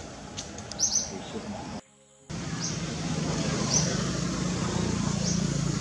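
Birds chirping, short high calls every second or so. About two seconds in the sound drops out briefly, and after that a steady low hum runs under the chirps.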